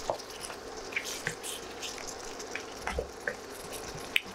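A wooden spatula stirs chicken pieces through a little simmering water and oil in a nonstick pan, giving wet squelches and scattered light taps and pops.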